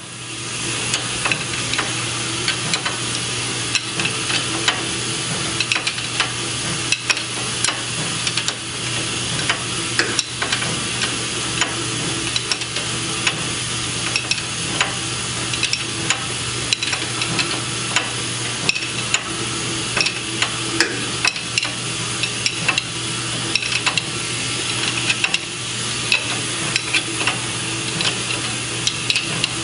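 Frequent small irregular metallic clicks and scrapes from a wrench turning the nut of a bearing puller, drawing the needle bearing out of a Toyota 8-inch clamshell differential carrier. Under it runs a steady hiss and low hum.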